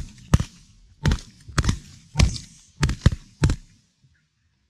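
A volley of shotgun fire from several duck hunters: about seven sharp shots in three and a half seconds, unevenly spaced, some in quick pairs, then the shooting stops.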